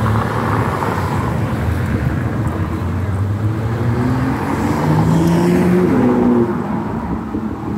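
Car engine running and speeding up on the road. Its pitch rises and steps up about halfway through, then it fades a little near the end.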